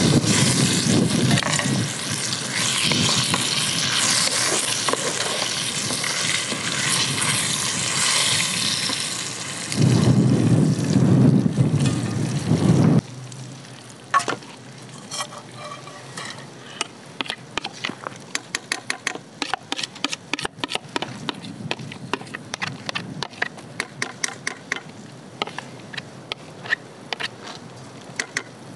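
Eggplant frying in oil in a pan, sizzling loudly while being stirred with a wooden spoon. About thirteen seconds in the sizzle drops off sharply, leaving quieter crackling with many short pops and ticks.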